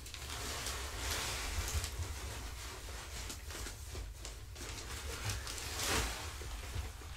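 Paper bag of pine cat litter rustling while loose litter is shaken out of it onto a litter box, a gritty hiss with small clicks and a louder rush about six seconds in.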